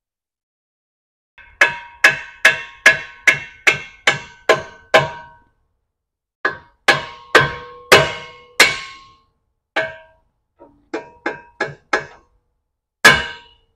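Hammer blows on steel, each a sharp ringing clank. About nine come in quick succession at roughly two a second, then after a short pause about five more, a few lighter taps, and two heavy blows near the end.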